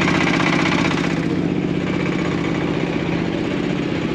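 An engine idling steadily at an even pitch, with a fast regular throb.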